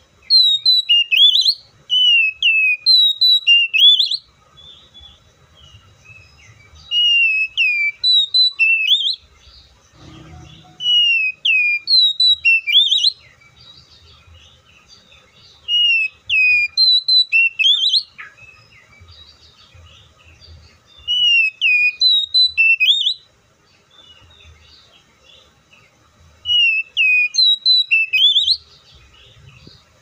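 Oriental magpie-robin (Copsychus saularis) singing: loud, clear whistled phrases of sweeping notes that rise and fall. It sings them in bursts of two or three seconds, about seven times, with short pauses between.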